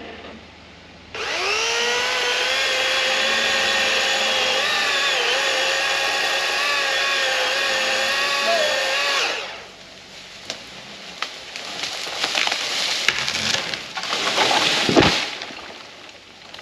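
Master Force 80-volt cordless electric chainsaw starting about a second in and running at a steady high whine as it cuts through the trunk, its pitch dipping slightly under load, then stopping. After it, wood cracks and snaps in a building series that ends in a loud crash near the end as the tree gives way and falls.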